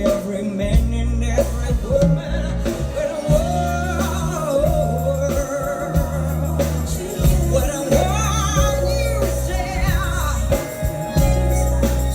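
Live neo-soul band playing: a female singer holds long, wavering notes over drums, bass and keyboards.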